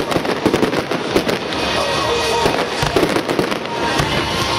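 Aerial firework shells bursting in a rapid string of sharp bangs and crackles, with music playing alongside.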